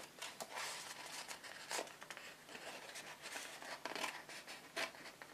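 Scissors snipping through a sheet of patterned scrapbooking paper, a few separate cuts, with the paper rustling as it is turned between them.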